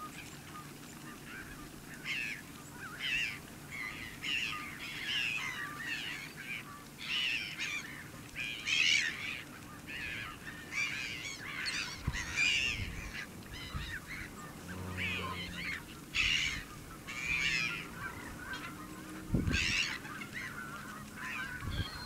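A flock of wild waterfowl calling over and over, many short overlapping calls in quick succession.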